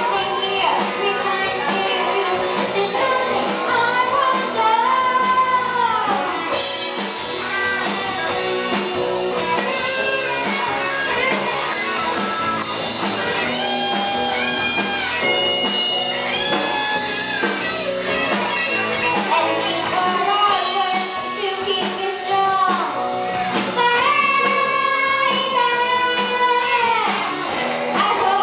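Live band music: two girls singing a song into microphones over amplified electric guitar.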